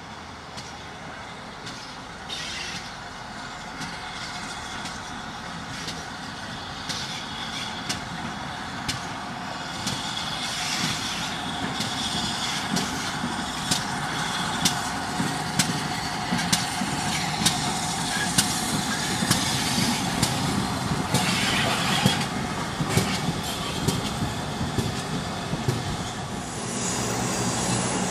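GWR 4300 class 2-6-0 Mogul steam locomotive No. 5322 running past with its coaches, getting louder as it approaches. From about a third of the way in, a regular run of sharp beats sounds over the steady rumble.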